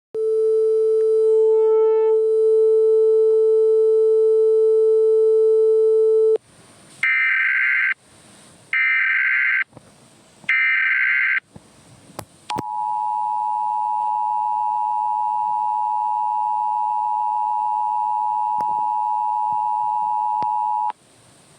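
Emergency Alert System tones: a steady buzzy tone for about six seconds, then three short screeching SAME header data bursts about a second apart, then the EAS two-tone attention signal, held for about eight seconds before cutting off.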